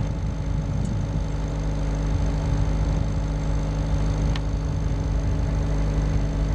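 Small river cabin cruiser's inboard engine running steadily as the boat cruises, heard from on board: an even low hum.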